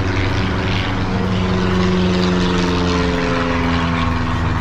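Propeller-driven light airplane flying overhead, a steady engine drone whose pitch slowly falls as it passes.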